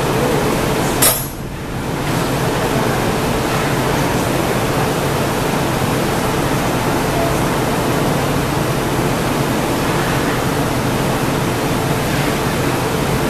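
Steady rushing background noise of a glassblowing studio, with one sharp click about a second in.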